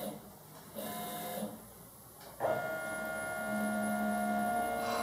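Robot arm's stepper motors whining as the arm is jogged by joystick, in start-stop moves: a short burst about a second in, then a longer steady run from about two and a half seconds in.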